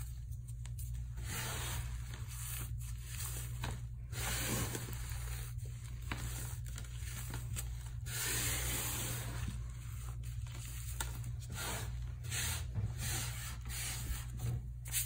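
Hands rubbing and sweeping crushed floral foam crumbs and shards of dried paste coating across a flat surface: a continuous gritty scratching dotted with many small crackles.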